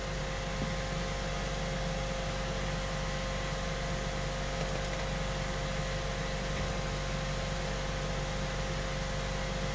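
Steady background hum and hiss, even throughout, with a few faint steady tones in it; no distinct knocks or clinks.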